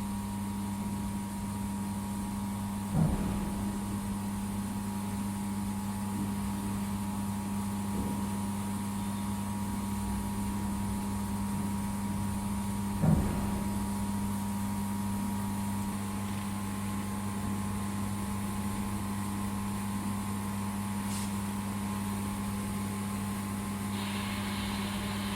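Steady electrical hum of a 2000 W laser welding machine running, with two brief knocks about three and thirteen seconds in.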